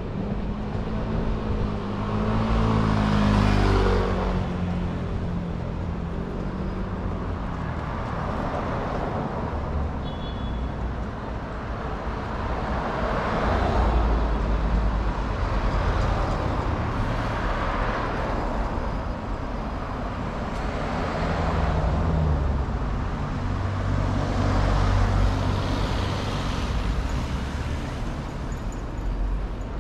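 Road traffic on a city street: a run of cars passing one after another, each swelling and fading, over a low engine rumble.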